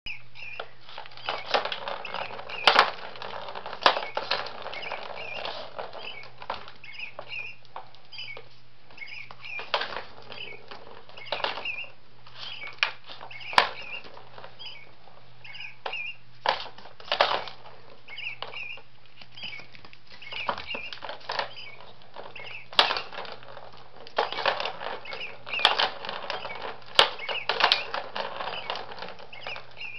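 Plastic balls rolling and rattling around the track of a circular cat track-ball toy as kittens bat at it, with sharp clicks and knocks as paws hit the plastic. The rattling comes in busy spells, with scattered single clicks in between.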